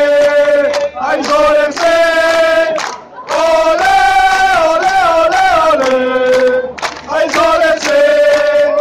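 Crowd of football supporters singing a chant together in unison: short held notes broken by brief pauses, with a longer wavering phrase that falls in pitch in the middle.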